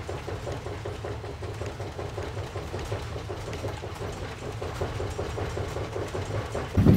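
A steady low drone with a fast, even pulsing over it. Shortly before the end it suddenly becomes much louder.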